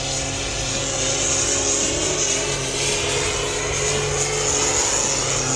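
A modified diesel pulling tractor with International Harvester bodywork runs at full power under heavy load as it drags the pulling sled. It gives a steady engine note with a high whine over it.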